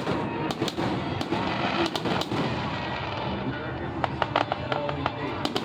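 Fireworks going off: a string of sharp pops and bangs, scattered at first and coming thick and fast about four seconds in.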